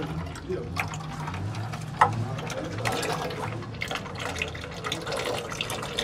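Used engine oil dripping and trickling from the Nissan Clipper into a metal drain tray, with small splashes and clinks and one sharp metallic click about two seconds in, over a steady low hum.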